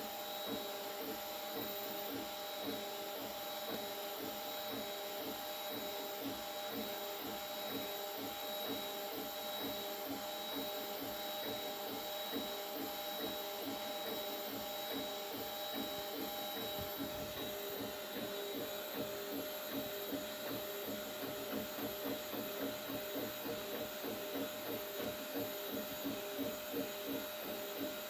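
3D printer running a print job: several steady whining tones over a fast, even pulsing chatter from its moving axes. A bit past halfway the highest tone drops out, and the pulsing becomes more pronounced toward the end.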